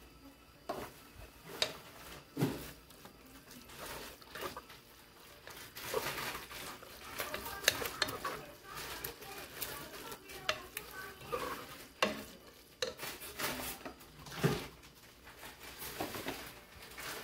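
Wooden spoon stirring shredded chicken in a metal pressure-cooker pot, scraping and knocking against the pot's sides in irregular strokes over a sizzling simmer. The stirring starts under a second in.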